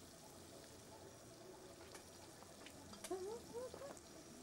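Quiet outdoor ambience: a faint steady hiss with a few soft clicks, and three short rising calls about three seconds in.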